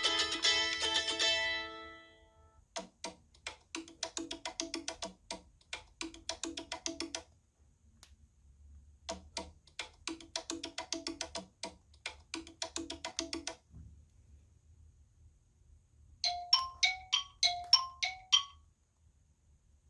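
iPhone 11 Pro ringtones playing one after another. A plucked-string tune dies away about two seconds in, then a ringtone of quick wood-block-like taps plays its pattern twice. A short figure of bright chime tones follows near the end.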